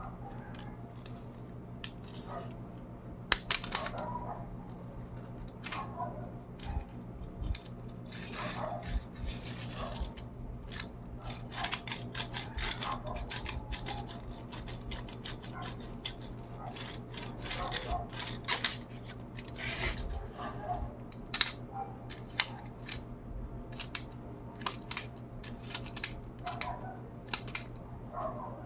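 Toy truck being handled and played with: irregular clicks, rattles and scraping over a steady low hum.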